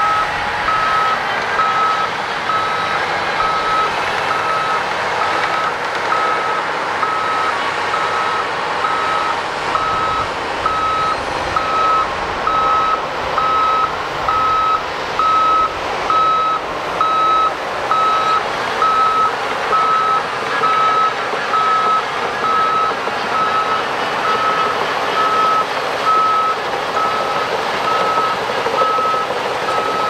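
Reverse warning alarm on heavy earthmoving machinery, beeping at an even pace a little more than once a second over the steady running of a heavy machine's engine.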